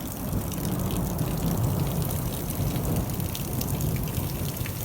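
Rain pouring down steadily, a dense rush with many individual drops tapping and a low rumble underneath.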